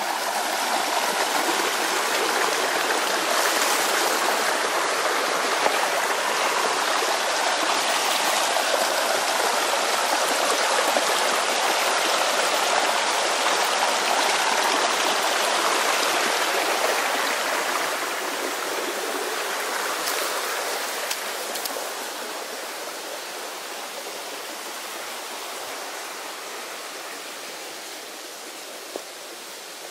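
Shallow rocky stream running and splashing over stones, a steady rush of water that grows fainter over the last third.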